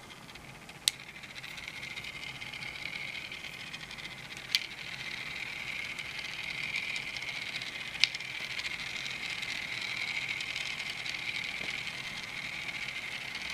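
Tiny motors of 1/1000-scale Teeny Trains electric train cars running on their track: a steady high whirring hiss that grows louder as more cars run. Three sharp clicks stand out, about three and a half seconds apart.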